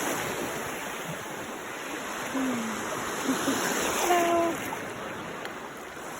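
Small sea waves washing steadily onto a sandy beach, a constant rushing wash of surf.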